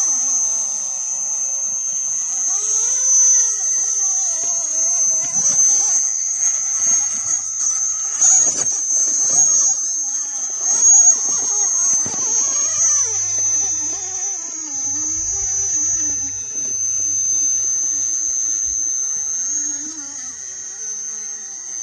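Axial Capra radio-controlled crawler's electric motor whining as it climbs rock, its pitch wandering up and down with the throttle, over a steady high-pitched tone. A few knocks of the tyres and chassis on the rock come about a third and halfway through.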